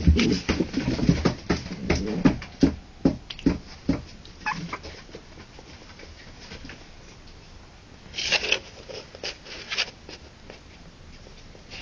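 Three-week-old harlequin poodle puppies moving and scuffling about, making quick pattering taps. The taps come thick in the first few seconds, thin out, then return briefly about eight seconds in.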